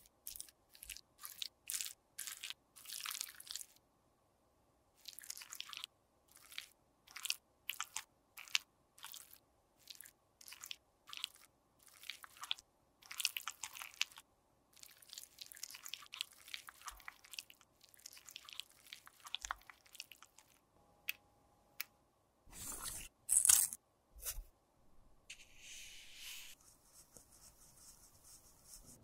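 Metal spatula scraping and smoothing cream makeup in a plastic pot: short scraping strokes, one after another with brief pauses. A louder knock about two-thirds through, then softer steady rubbing near the end as a swab wipes the rim of the pot.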